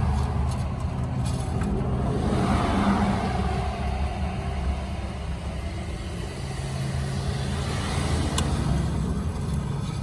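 Motor vehicle engine running with a low, steady rumble that swells about two seconds in and again near the end.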